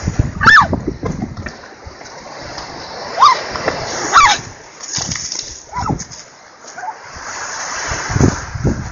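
Waves splashing and sloshing against the shore, with a few thuds of water hitting. Three short shouts or calls, one near the start and two around the middle.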